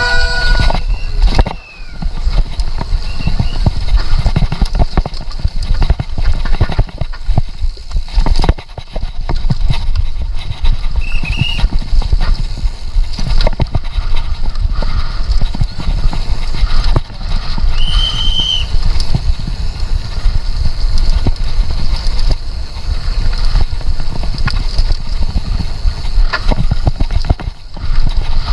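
Downhill mountain bike clattering and jolting over rough trail at speed, with a constant stream of knocks and rattles and heavy wind rumble on the microphone.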